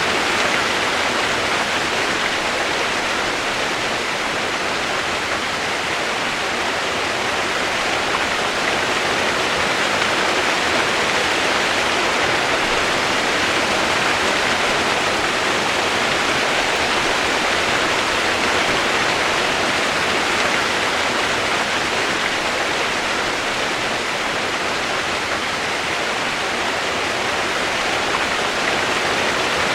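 Steady rush of flowing water, an even hiss with no distinct splashes or drops.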